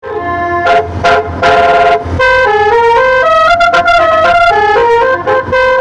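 Telolet multi-tone musical horn heard from inside a bajaj auto-rickshaw: a few short blasts, then from about two seconds in a quick tune of stepped notes.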